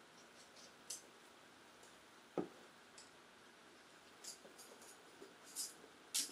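Faint handling noises of a plastic rear bumper guard being lifted off a cardboard box: a few light clicks and taps, with one louder knock about two and a half seconds in and a sharp click near the end.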